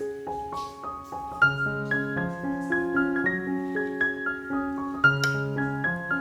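Soft background piano music, a melody of single notes over held low notes, with a couple of brighter struck notes about a second and a half in and again near the end.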